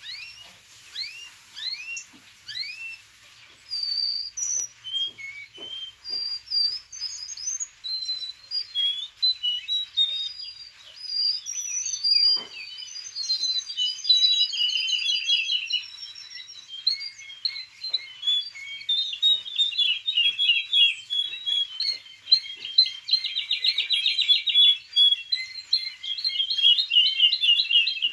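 Young male canary, six and a half months old, singing a long run of varied whistles, chirps and fast trills. This is a juvenile still practising its song. A wild woodlark and a yellow-throated bunting sing in the background.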